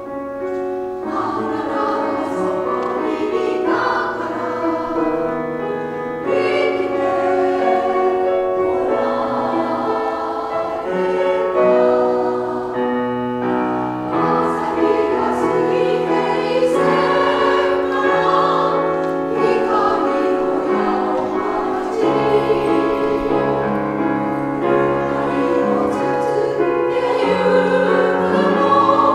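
Women's choir singing a Japanese song in held, sustained phrases, accompanied by grand piano.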